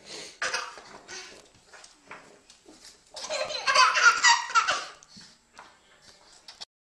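Baby laughing in short bursts, then a long, loud fit of laughter about three seconds in.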